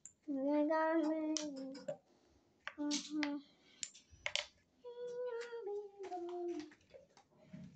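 A young child singing to itself in short, high-pitched phrases, some held and sliding down in pitch, with pauses between them. A few short light clicks come in between the phrases.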